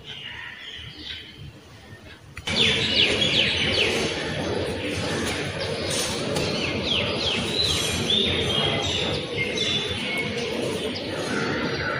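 Small birds chirping over a steady outdoor background noise, with many quick, falling chirps. The outdoor sound jumps much louder about two and a half seconds in.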